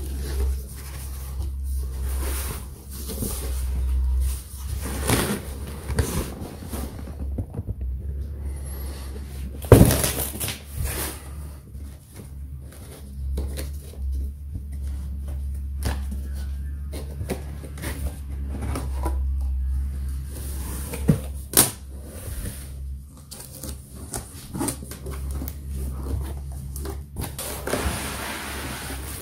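Cardboard boxes and packing being handled: flaps opened, a box slid out and set down, and plastic wrapping and foam moved about, giving irregular scrapes, rustles and knocks. The sharpest knock comes about ten seconds in. A steady low rumble runs underneath.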